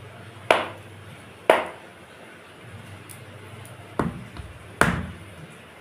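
Hands slapping and patting a piece of roti dough flat: four sharp slaps, two about a second apart near the start and two more close together around four to five seconds in.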